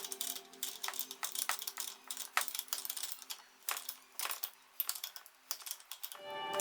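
Irregular light clicks and taps, several a second, over faint background music that gets louder near the end.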